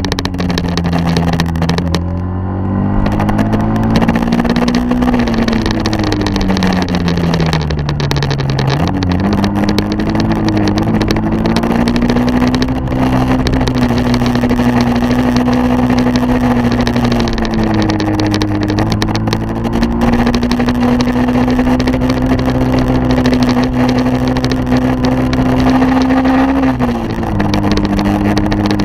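Engine of the vehicle carrying the camera, running steadily over a rush of wind and road noise. About five seconds in its pitch slides down for a few seconds, then climbs back and holds, with a quick dip near the end.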